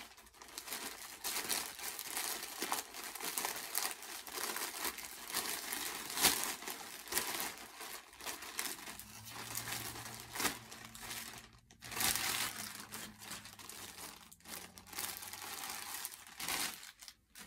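Plastic poly mailer and the clear plastic bag inside it crinkling and rustling in the hands as a package is opened and unpacked, with brief pauses near the middle and the end.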